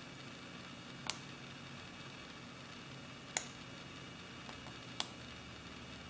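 A lock pick clicking against the pins of a Best 7-pin interchangeable-core padlock during single-pin picking: three sharp metallic clicks, about a second in, at three and a half seconds and at five seconds, with a faint tick just before the last.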